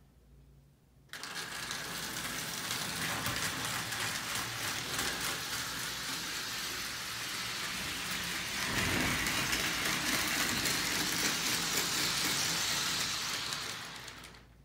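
Prewar Lionel tinplate electric toy trains running: a steady whirring clatter of their motors and wheels on the tinplate track. It starts abruptly about a second in and dies away near the end.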